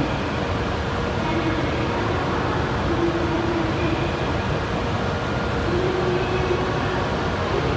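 Steady hum and rushing air noise of an E7/W7 series Hokuriku Shinkansen train at the platform, with no rise in pitch or level.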